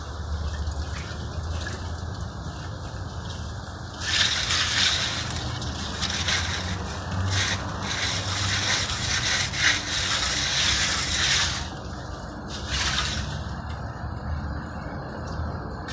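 Steel trowel scraping wet cement render across a concrete-block wall, in long gritty strokes that start about four seconds in with short breaks between them, then one more short stroke near the end.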